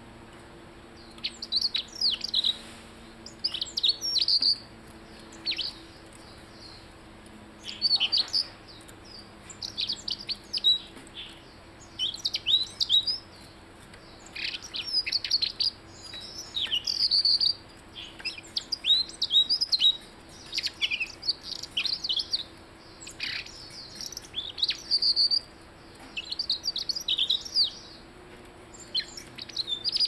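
Caged blue-headed robin singing: short phrases of rapid, high chirps and downward-sweeping notes, repeated again and again with brief pauses between them.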